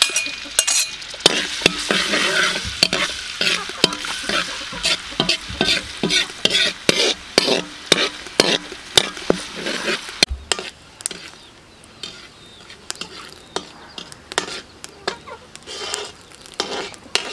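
Chopped garlic and green onion sizzling in hot oil in a steel wok, with a slotted metal spatula scraping and tapping against the pan as it stirs. The stirring strokes come thick and fast for about the first ten seconds, then grow quieter and sparser.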